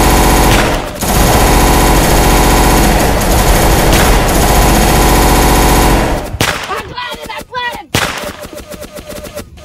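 Belt-fed machine gun firing in long continuous bursts, with a short break about a second in. The heavy fire stops about six seconds in, leaving quieter, rapid shots.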